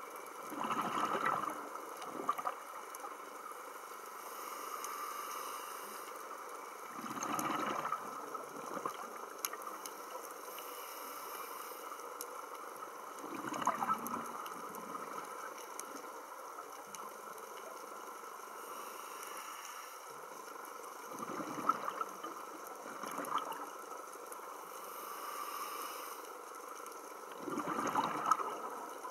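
Scuba diver's exhaled bubbles gurgling out of the regulator in a burst about every six to seven seconds, with a steady underwater hiss between breaths.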